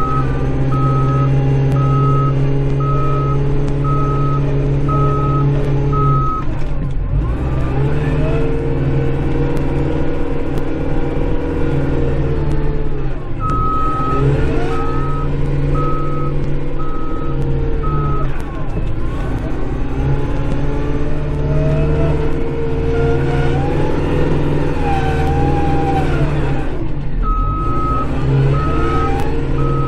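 Kubota Grand L5740 tractor's diesel engine running steadily, heard from inside the cab, its note dipping briefly a few times as it changes direction. Its reverse beeper sounds a steady series of single high beeps in three stretches: at the start, around the middle, and near the end, each time the tractor backs up.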